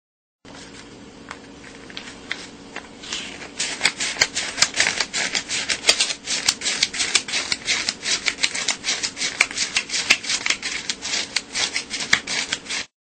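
Paper US dollar bills being counted by hand, thumbed through one at a time in a folded stack: a quick, even run of crisp snaps and rustles, several a second. It starts softly, grows louder about three seconds in, and stops abruptly near the end.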